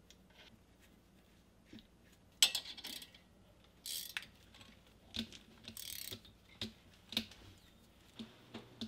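Hand ratchet wrench clicking in short irregular runs, with metal clinks, as the front brake caliper bolts are tightened.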